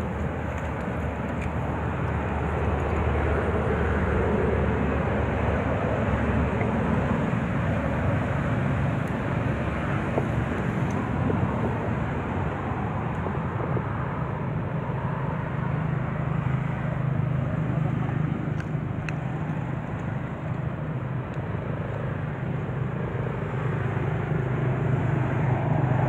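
Steady outdoor background noise with a continuous low rumble, like a distant engine, that grows a little stronger in the second half.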